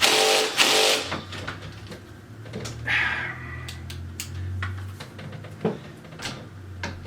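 Cordless drill-driver driving screws into the particleboard desk frame: a loud whir in the first second, then the motor turning slowly with a low hum that stops and starts, among scattered clicks and knocks from handling the parts.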